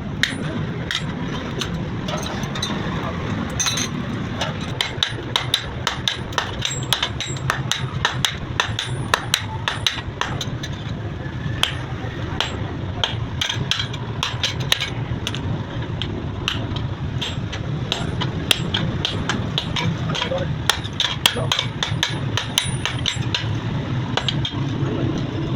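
Blacksmith's hammer striking steel on an anvil while forging a knife blade: many sharp blows at an uneven pace, with a metallic ring, over a steady low hum.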